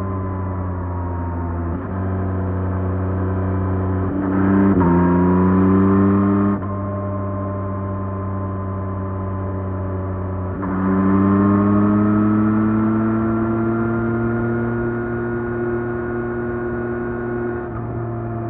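2024 Yamaha MT-09 SP's 890 cc inline-three engine, stock exhaust, under way. The throttle is opened twice, about four seconds in and again near eleven seconds, and each time the engine note gets louder and climbs slowly in pitch before the throttle closes and it drops back to a steadier cruise.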